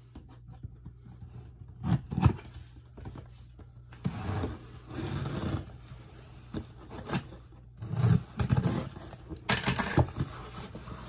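Cardboard shipping box being opened by hand: irregular scraping, tearing and rustling of tape, cardboard and packing material, with a couple of sharp knocks about two seconds in.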